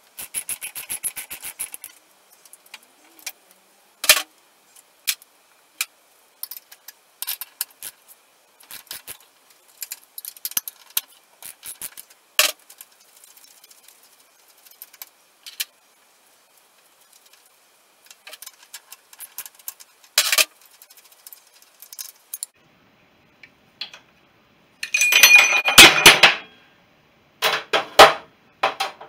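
Hand tools on the cylinder-head nuts of a BSA B31 motorcycle engine: a ratchet clicking fast at first, then scattered sharp clinks of spanner work. Near the end, a dropped metal part clatters loudly down through the engine, with a second short clatter just after.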